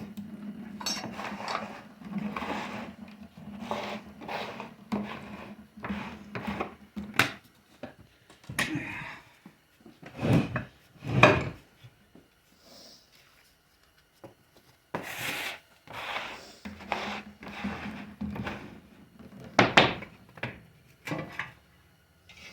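Parts of a 4L60E automatic transmission knocking, clunking and scraping as it is taken apart by hand, in irregular bursts. A low steady hum runs under the first third and again near the end.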